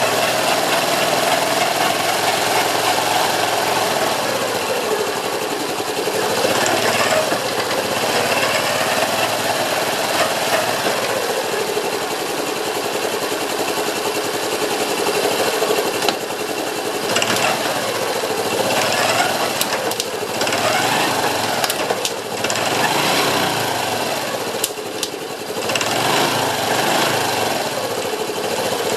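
Honda Cross Cub JA10's 110 cc single-cylinder engine running with a rapid mechanical rattle, the abnormal noise being recorded. A pitched tone in the sound slowly rises and falls several times.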